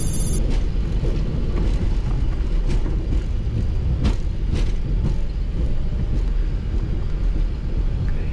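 Boeing 737-800 cockpit noise during the landing rollout: a steady rumble of the wheels on the runway and the engines as the airliner slows through about 60 knots, with a few light knocks.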